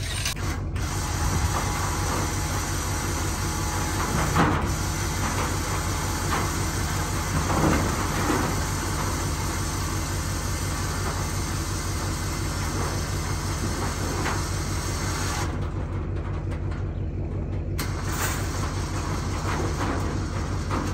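A motor running steadily, a low pulsing hum with a rumble over it. There is a brief knock about four and a half seconds in and a louder stretch near seven and a half seconds.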